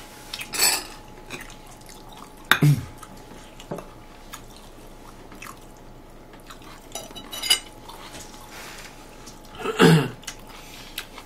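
Eating at a table: a handful of short, sharp clinks and taps of spoon and chopsticks on ceramic bowls and plates. Twice, near 2.5 s and 10 s, there is also a brief falling mouth or throat sound.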